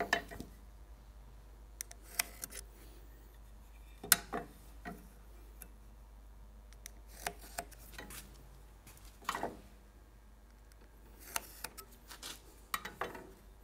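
Scattered light clicks and taps as a metal sliding bevel is set down and shifted on clamped wooden boards and a pencil marks along it, with the small sounds bunching up near the end.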